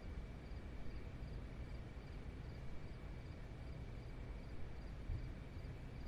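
Faint background ambience: a steady low rumble with faint high chirps repeating about twice a second.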